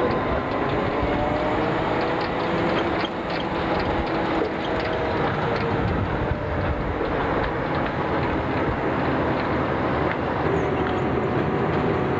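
Narrow-gauge train running along the track, heard from aboard its diesel locomotive: a steady mix of engine and wheel noise, with faint whining tones that slowly drift in pitch.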